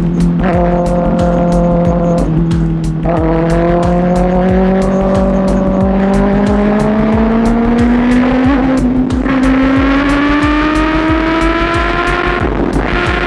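Kawasaki ZX6R's 636cc inline-four engine running at speed, its pitch climbing slowly and steadily as the bike accelerates. Wind rushes and buffets over the microphone.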